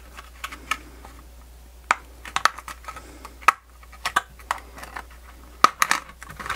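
Irregular light clicks and taps of a thin aluminium heat-spreader plate, an M.2 SSD and a clear plastic blister tray being handled and prised apart with a plastic pry tool.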